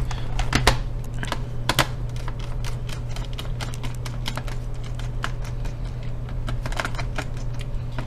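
Small Phillips screwdriver turning out screws in the plastic bottom case of an Acer Aspire E5-522 laptop: irregular light clicks and ticks over a steady low hum.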